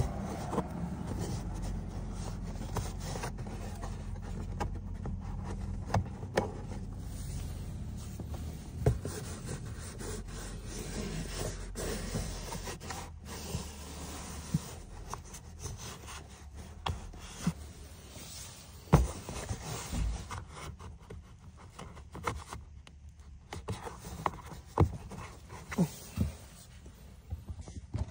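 Hands fitting the plastic cabin air filter cover under an Audi's dashboard: plastic rubbing and scraping, with scattered clicks and knocks as the cover's clips are pushed into place. A low steady hum runs underneath and stops about halfway through.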